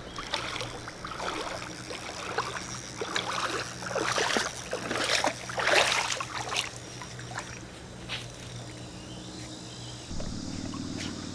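Splashing and sloshing of a person wading through shallow water, with irregular splashes for the first seven seconds or so that then die down, over a steady low hum.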